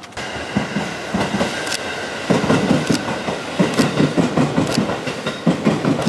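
Electric train passing on the tracks beside the station: groups of wheel clicks over the rail joints come every second or so, under a steady high whine.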